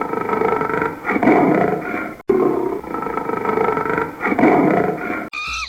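Lion roaring in long rough growls, the same roar cut off about two seconds in and heard again. Near the end it switches to short, high, arching calls from another animal.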